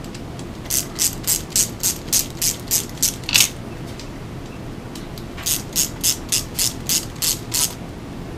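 Quarter-inch drive ratchet clicking as it snugs down valve cover bolts: two runs of quick, even clicks, about three a second, with a pause of about two seconds between them.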